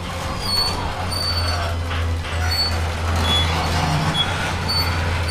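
Ceiling-mounted garage door opener motor running steadily with a low hum as it raises a sectional garage door.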